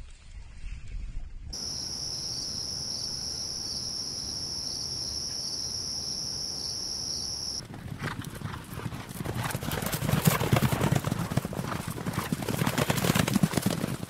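Hoofbeats of a herd of horses galloping over grass: a dense, rapid drumming that starts about halfway through and grows louder toward the end. Before it, a steady high-pitched whine on two pitches runs for several seconds.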